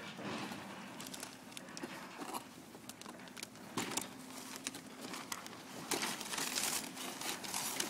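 Paper shooting target and bulletproof vest rustling and crinkling as they are handled and pulled about, with irregular sharp crackles, busiest near the end.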